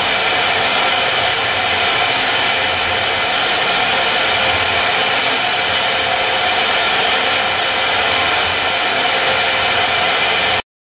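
Double-head CNC router's two spindles running steadily as they carve relief patterns into wooden boards: a constant high whine over cutting noise. It breaks off abruptly at the very end.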